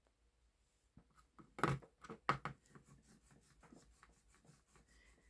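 Small rolling pin knocking and rubbing on a hard work surface while flattening silicone adhesive dots. Two sharper knocks come about two seconds in, followed by softer clicks and rubbing.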